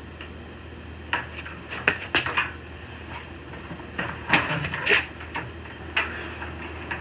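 Metal clicks and clanks of a hand-operated single-stage reloading press being worked, a series of sharp, irregular knocks over a steady low hum.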